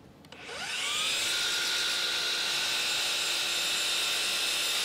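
DeWalt FlexVolt 12-inch sliding miter saw's brushless motor spinning up with a rising whine about half a second in, then running at a steady pitch as its 60-tooth blade cuts through MDF.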